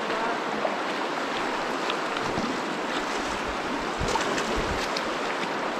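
Steady rush of the shallow Virgin River running through the canyon, with a few low thumps near the middle.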